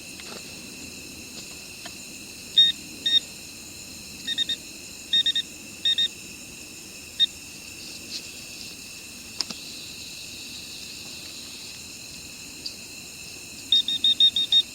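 Short electronic beeps from a device, singly and in quick groups of two or three, then a fast run of six near the end, like buttons being pressed. Steady night insects keep up a high drone underneath.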